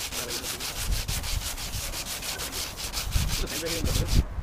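Sandpaper rubbed back and forth by hand over the painted hood of a BMW E36, in quick, even scratchy strokes several times a second, stopping abruptly near the end.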